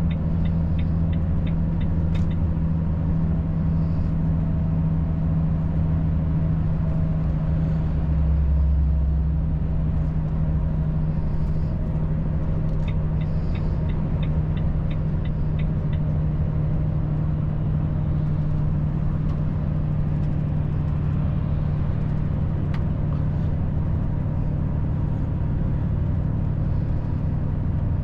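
Volvo FH 540 truck's diesel engine running steadily while driving, a low drone that swells briefly about eight seconds in. Two short runs of quick, regular ticking, about three a second, come near the start and again about halfway through.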